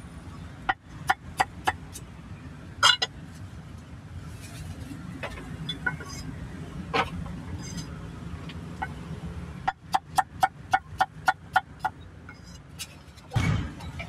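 Cleaver chopping meat: a few sharp strokes about a second in, then a fast, even run of about ten chops a little after two-thirds through, and a heavier thump near the end, over a steady low traffic rumble.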